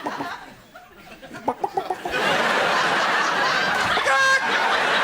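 A performer's mouth-made sound effects: short clucking, pitched vocal blips, then from about two seconds in a steady, loud rushing noise, with a brief held tone near the end.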